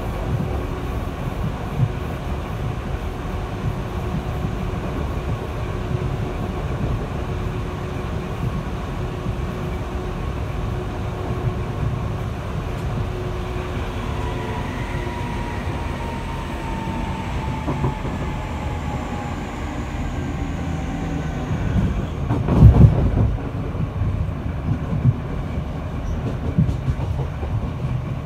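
British Rail Class 465 Networker electric train heard from inside the carriage while running: a steady wheel-on-rail rumble with the whine of its Hitachi IGBT inverters and Brush traction motors. From about halfway through, one whine tone falls slowly in pitch. A loud knock comes about four-fifths of the way through.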